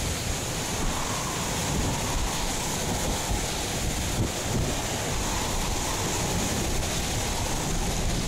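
Typhoon winds blowing with heavy wind-driven rain, a steady rushing noise, with gusts buffeting the microphone in a low rumble.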